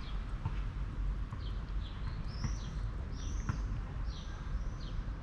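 Small birds chirping, a run of short arched chirps repeated several times, over a steady low rumble, with a few faint short clicks scattered through.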